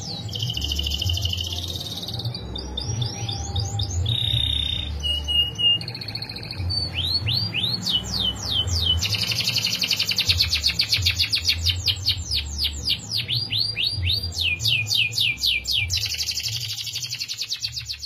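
Domestic canary singing a long unbroken song of rolls: fast runs of repeated rising and falling notes, changing phrase every second or two, with buzzy trills near the start and end and a long rapid roll from about ten to fourteen seconds in. A steady low rumble lies underneath.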